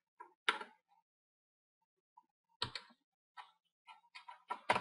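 Small Phillips electronics screwdriver working a stubborn screw in a laptop's plastic screen bezel: scattered sharp ticks and clicks of the bit against the screw, coming quicker and louder near the end.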